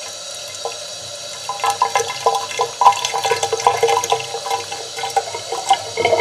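Tap water pouring from a faucet into a hand-held plastic tub. A steady stream at first, then splashing and gurgling that gets louder from about a second and a half in as the tub fills.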